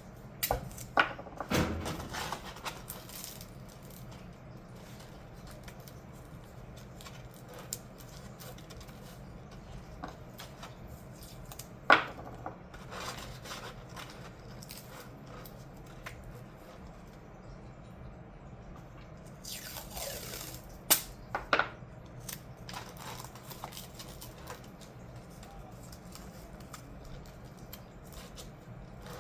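Scattered knocks and clicks of tools and materials being handled on a workbench, a few close together near the start, one sharp knock about twelve seconds in and a cluster around twenty seconds in, with a brief rustling scrape just before that cluster.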